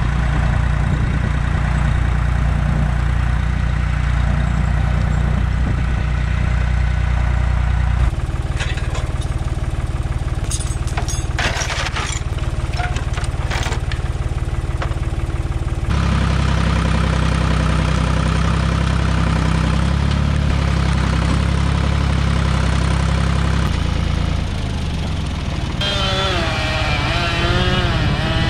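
Tractor engine running at a steady speed while skidding a felled tree, broken in the middle by several sharp knocks and rattles. Near the end a chainsaw starts revving, its pitch rising and falling.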